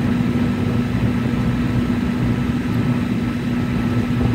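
Steady cabin noise of a jet airliner in flight: an even drone of engines and airflow with a constant low hum.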